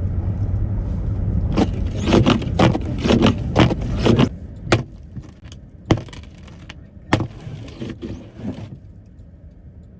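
Low rumble of a car's cabin on the road, with a quick run of clicks and rattles. About four seconds in, the rumble drops away, leaving a few single clicks and rattles.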